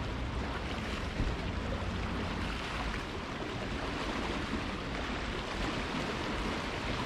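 Steady wash of small waves on shoreline rocks, mixed with wind rumbling on the microphone.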